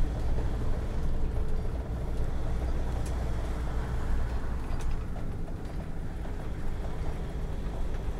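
Camper van's engine and tyre noise heard from inside the cab while driving, a steady low rumble, with a couple of faint ticks or rattles.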